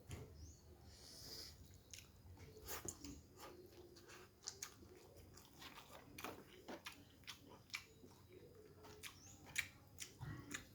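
Close-miked eating sounds: chewing, with many small wet mouth clicks and smacks, from someone eating red snapper head and boiled eggs.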